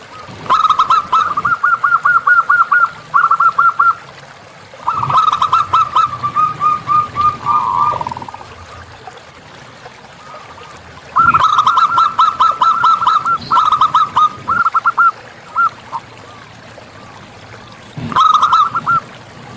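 Zebra dove (perkutut) cooing in rapid staccato phrases of quick repeated notes, four bouts with pauses of a few seconds between them.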